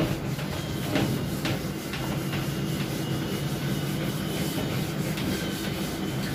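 Whiteboard duster rubbing marker working off the board in repeated wiping strokes, over a steady low hum.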